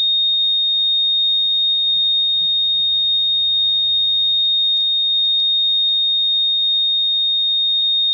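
Camper's propane leak alarm sounding one steady, unbroken high-pitched tone. The owner doubts there is a leak and thinks the alarm could just be going bad.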